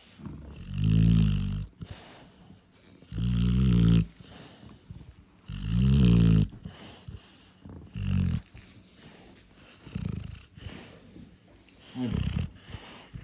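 Labrador snoring: three loud, rumbling snores about two and a half seconds apart, then weaker, shorter snores about 8, 10 and 12 seconds in.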